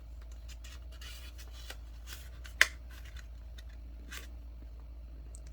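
A sheet of letter-size printer paper being folded and creased by hand: faint rustling and rubbing, with one sharper crinkle about two and a half seconds in.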